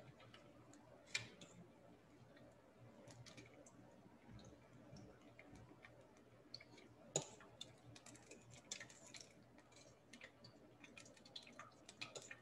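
Faint, sparse crackling and popping of egg tempura batter deep-frying in hot oil, with two sharper pops about a second in and about seven seconds in.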